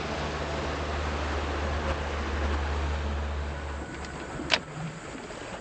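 Boat motor running with a steady low hum and wash of noise, dropping away about four seconds in; a single sharp click follows shortly after.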